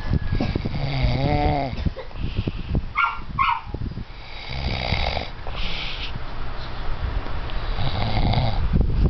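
A sleeper snoring in repeated long breaths, one of them with a humming tone about a second in.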